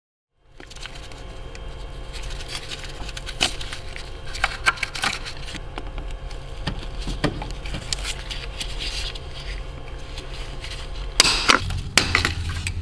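Clicks, snaps and scrapes of hose clamp pliers and plastic evap hoses and fittings being worked off a purge regulator valve, starting about half a second in over a steady low hum. The loudest crackling comes about eleven seconds in.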